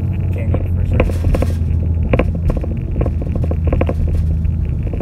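Straight-piped exhaust of a muffler-deleted Hyundai Veloster four-cylinder, heard from inside the cabin while driving: a loud, steady low drone with brief sharp clicks scattered through it.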